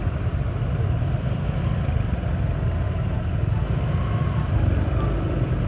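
A motorbike ridden slowly in traffic: a steady low rumble of engine and road noise.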